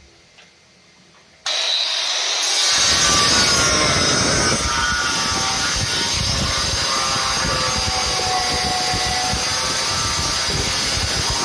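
Handheld electric tile cutter with a diamond blade starting up suddenly about a second and a half in and running at full speed, its high motor whine joined soon after by a rough grinding rasp as the blade cuts through a floor tile.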